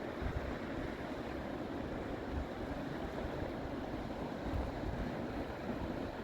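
Steady rushing of river rapids, the Lachine Rapids on the St. Lawrence, with wind buffeting the microphone in low, uneven rumbles.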